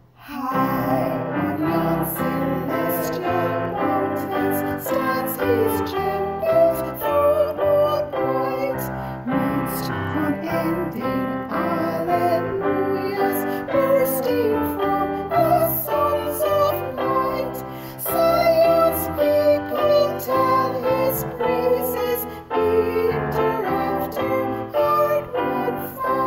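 A hymn sung with piano accompaniment, a new phrase beginning just after a brief pause at the start.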